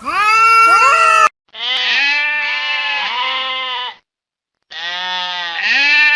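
Animal calls: a high call that cuts off abruptly about a second in, then two long pitched calls, each about two seconds long, with a short silent gap between them. Each call ends abruptly.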